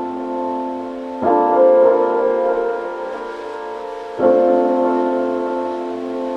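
Background music: slow sustained piano chords, a new chord struck about every three seconds.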